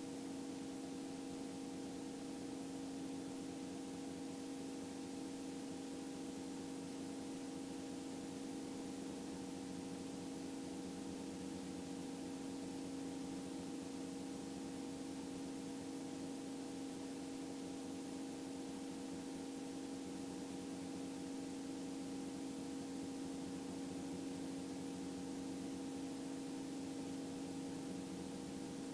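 Steady electrical hum with a few fixed tones over faint hiss, the background of the aircraft's headset and radio audio feed between transmissions.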